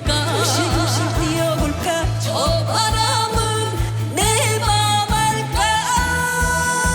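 Music: a Korean folk-style pop song with a steady low drum beat of about three hits a second, under a sliding, wavering melody line that is sung or played without words.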